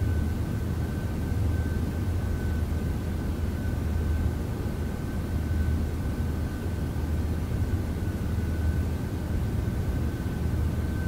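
Steady low hum with an even hiss, and a faint high-pitched tone that fades in and out every second or two.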